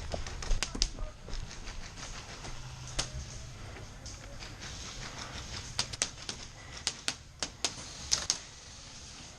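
Scattered sharp clicks and pops of airsoft guns firing single shots and quick pairs, irregularly spaced, in a close-quarters field.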